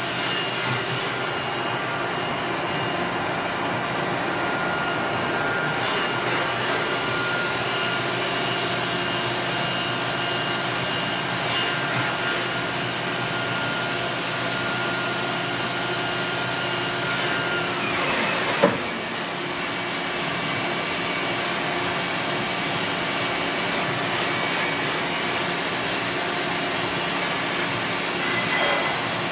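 Doosan DNM5700S vertical machining center running through a program: a steady mechanical whir with high whines. About 17 seconds in, a high whine drops steeply in pitch as the spindle slows, and a single sharp clunk follows. The machine then keeps running.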